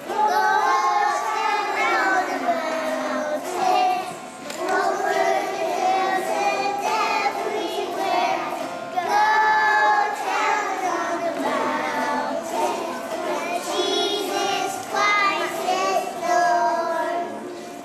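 A group of young children singing a song together, in sung phrases with short breaks between them.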